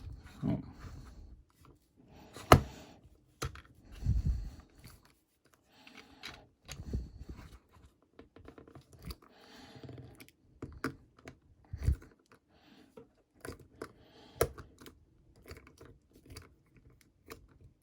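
Small metal lock parts and tools being handled on a bench: scattered sharp clicks and taps among softer rustling, with one loud click about two and a half seconds in.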